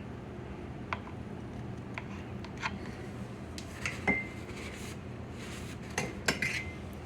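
Kitchen dishes and utensils knocking and clinking, about eight separate hits. Two of them, near the middle and near the end, ring briefly like glass or ceramic, over a steady low hum.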